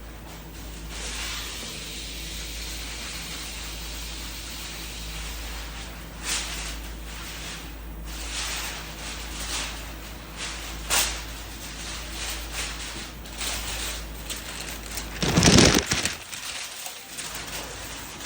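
A machine hums steadily under a hiss with scattered short scrapes; about fifteen seconds in there is a loud half-second burst and the hum stops.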